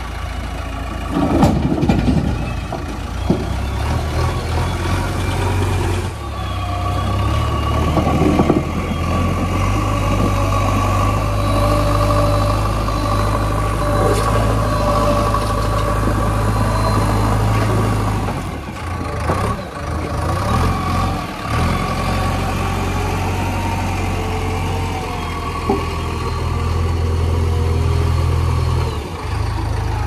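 JCB 3DX backhoe loader's diesel engine running while it digs and loads, its engine note shifting up and down several times, with a steady high whine over it and a few brief clatters.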